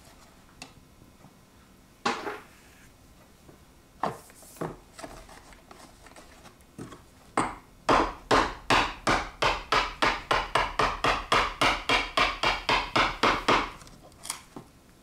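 Hammer striking a chisel to chip hardened Sculptamold off a baseboard: a few scattered blows, then from about seven seconds in a fast run of strikes, about four a second, for some six seconds.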